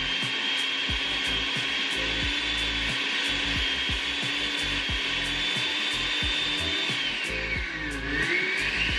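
Countertop blender motor running at high speed, puréeing chopped vegetables, with a steady high whine; near the end the whine drops and climbs back up as the motor slows and speeds up again.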